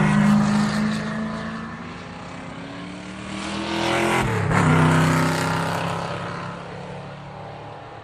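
Sports car engine driving past: loud at first and easing off, then climbing in pitch as it comes closer. About four seconds in the pitch drops sharply as it passes, and the engine fades away near the end.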